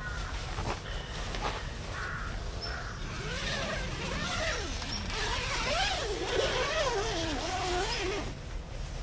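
Squeaks and creaks of camping gear rubbing and flexing as a person moves and sits down inside a tent. For about five seconds from three seconds in, the squeaks waver up and down in pitch.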